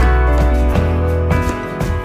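Instrumental background music: a light tune of sustained notes over a steady bass line.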